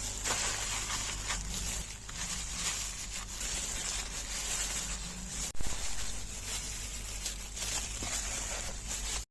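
Steady hiss of food sizzling in a pan, with soft irregular crackle; it breaks off briefly about five and a half seconds in, then carries on.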